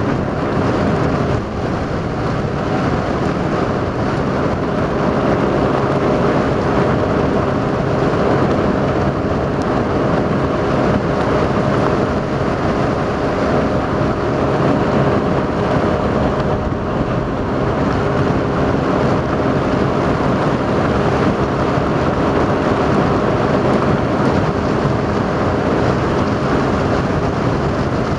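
A motorboat running steadily under way over choppy water. The engine gives a steady hum beneath a constant rush of water and wind noise.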